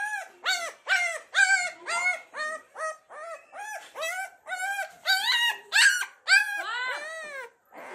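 Black Labrador puppy crying in a steady string of short, high-pitched yelps, about two to three a second, each rising and then falling in pitch. Near the end comes one longer cry that slides lower.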